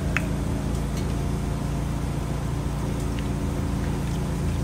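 A steady low motor hum at one constant pitch, unchanging throughout.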